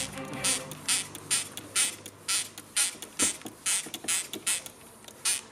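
Short hissing swishes repeating about twice a second as a carbon-fouled EGR valve is worked over with acetone spray and brushes during cleaning.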